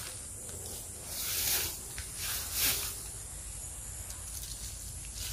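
Fern fronds and leafy undergrowth rustling as a hand reaches in to pick edible fern shoots, with two soft swishes about a second and two seconds in.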